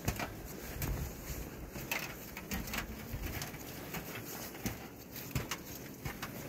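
Footsteps crunching in snow on snow-covered metal stairs, as a person and a dog climb: irregular crunches and light knocks.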